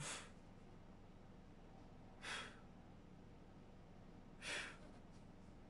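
A man breathing out sharply through mouth or nose three times, about two seconds apart, in time with the leg swings of a lying oblique twist.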